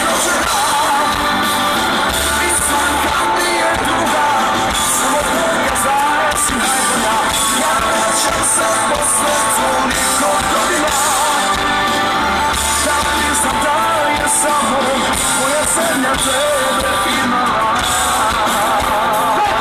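Loud music with a singing voice and a steady beat, played over loudspeakers.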